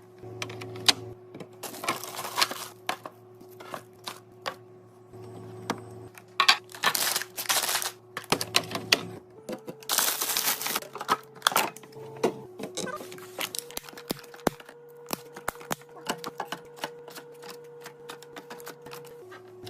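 Food items and plastic containers being handled and set down: a busy run of clicks, taps and clatter with several stretches of rustling packaging. Soft background music with long held notes plays underneath.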